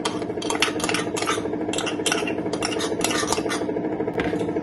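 Metal spoon scraping and tapping inside a stone mortar, several irregular scrapes and clicks a second, as crushed ginger and green chilli paste is scraped out into a bowl.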